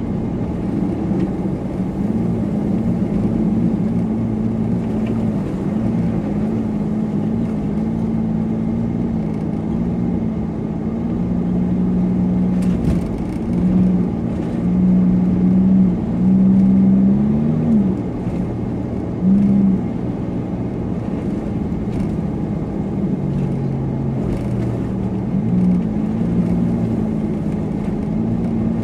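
Supercharged car engine running under way over steady road noise, with a few brief throttle rises in the middle of the stretch where the engine pitch climbs and it gets louder.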